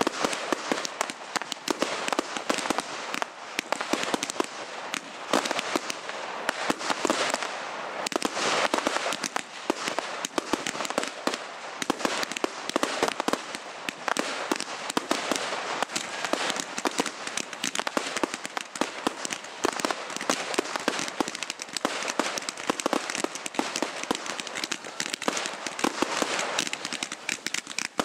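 Fireworks going off in a dense, continuous crackle of many rapid sharp bangs and pops.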